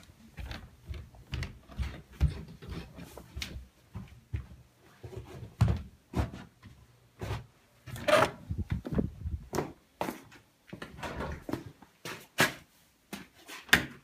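Footsteps and irregular knocks of someone walking through the house and out a door, with the loudest knock about eight seconds in.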